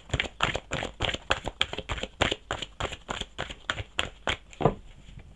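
A deck of oracle cards being shuffled by hand: a quick, irregular run of soft card flicks and rustles, several a second.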